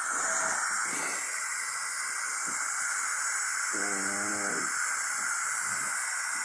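A steady hiss throughout, with one short voice-like hum about four seconds in.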